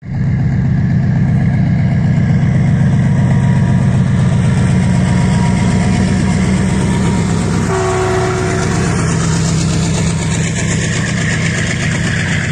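Diesel goods-train locomotive passing close by, its engine running with a loud steady drone. A brief higher tone comes about eight seconds in. Near the end, the covered goods wagons roll past with a rising hiss and rattle of wheels on rail.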